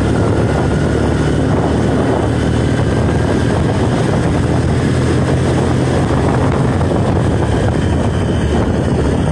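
Steady wind rushing over the microphone above a low, even engine drone, heard while riding along.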